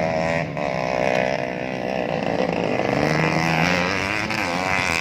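Several motocross dirt bike engines racing around the track, their pitch rising and falling as the riders open and close the throttle and shift gears, the engines overlapping one another.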